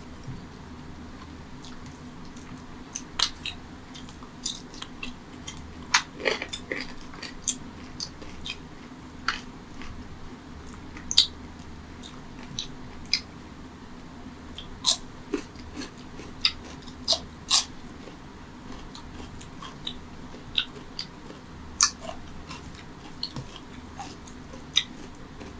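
Close-miked eating sounds: irregular short, sharp wet clicks and smacks from chewing and from fingers squishing rice and mutton curry gravy on a steel plate. A faint steady low hum runs underneath.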